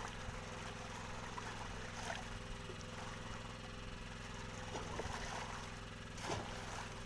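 Small engine running steadily at low speed, an even hum, with a couple of faint splashes of water.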